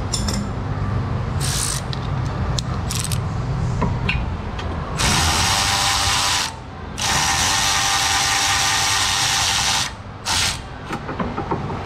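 Cordless electric ratchet spinning out a loosened brake caliper bolt. A few short bursts come first, then two long runs about halfway through with a brief pause between, and one last short burst near the end.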